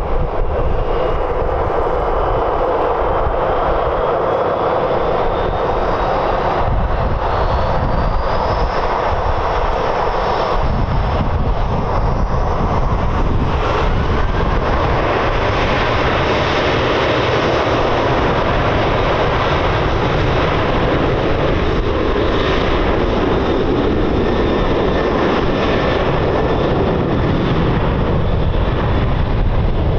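Boeing 737-800's CFM56 jet engines running loud as the airliner rolls along a wet runway, a steady roar with a thin whine rising in pitch over the first several seconds.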